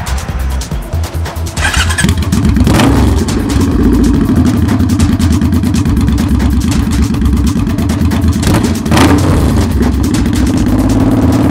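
Suzuki Boulevard C50's 805 cc V-twin engine running, with the throttle blipped briefly about three seconds in and again about nine seconds in.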